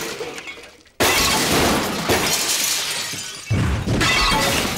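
Cartoon crash sound effects: shattering and clattering smashes. A first crash fades over the first second, a new one bursts in about a second in, and another heavy crash comes near the end.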